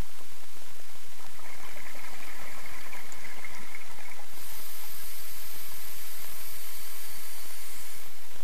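Steady hiss from a camera recording underwater inside its housing. A higher, thinner hiss joins in about halfway through.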